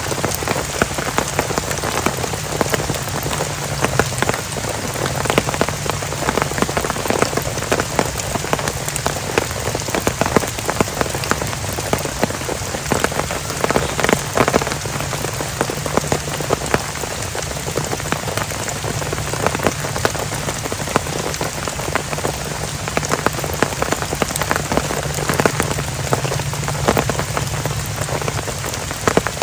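Heavy rain falling steadily, with a dense spatter of individual drops striking close by.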